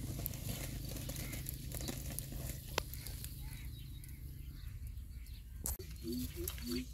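Small wood fire crackling under a roti griddle: sparse clicks and pops over a low steady rumble that fades about two thirds of the way through. Near the end a short rising note starts repeating, about three times a second.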